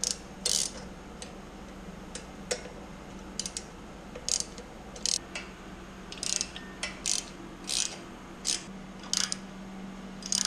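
Hand socket ratchet clicking in irregular short bursts while the exhaust clamps are tightened, over a steady low background hum.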